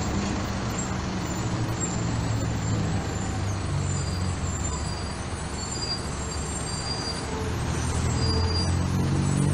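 Diesel city bus engines running on the street: one bus pulls away while a second bus's engine grows steadily louder as it approaches and passes close by near the end.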